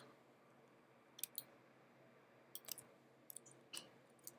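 Scattered clicks of a computer mouse and keyboard, several in quick pairs, over faint room hum.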